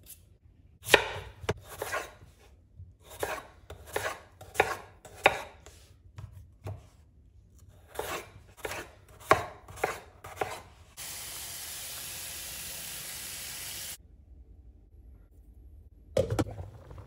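Kitchen knife cutting peeled potatoes on a wooden cutting board: a run of sharp cuts, each blade knocking through onto the wood, in two bursts over about ten seconds. A steady hiss follows for about three seconds, and near the end a glass lid knocks down onto a steel saucepan.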